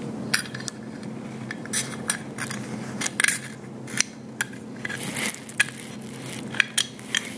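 Irregular small metallic clicks and clinks as an AR-15 dust cover, its torsion spring and hinge rod are handled against the upper receiver while the spring is rewound under tension and the rod threaded through the hinge.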